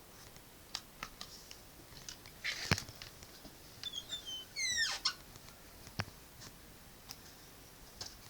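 Drawing by hand on paper: scattered light taps and short scratches from a pen or pencil, with a cluster of short, sharply falling squeaky chirps about four to five seconds in.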